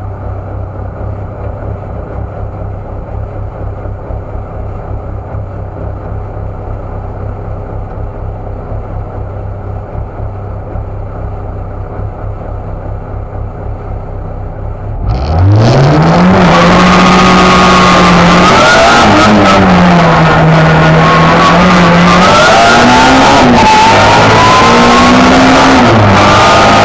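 Race car engine running steadily while held at the start line, then about fifteen seconds in the car launches: the engine note climbs sharply and it runs loud and hard up through the gears, the pitch dropping back at each gear change.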